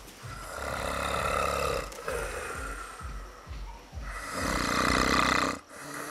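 A person snoring loudly: two long snores with a low rattle, one starting just after the start and one about four seconds in, with a quieter breath between them.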